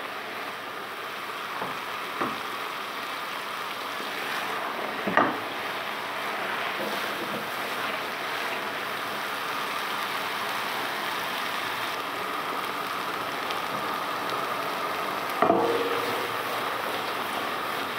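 Courgette curry sizzling steadily as it fries in a nonstick pot on a gas burner, with butter just added. A couple of light knocks come early, and a louder clunk with a brief metallic ring about three-quarters of the way through as the pot is shifted on the burner grate.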